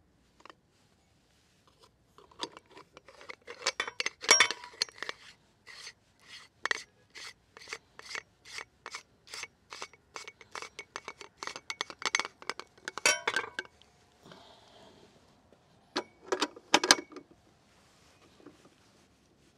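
Metal and plastic parts of a meat grinder being handled and fitted together: the steel knife and retaining ring clicking and clinking around a plastic sausage-stuffing nozzle. The clicks come in a regular run of about three a second, followed a few seconds later by a brief clatter.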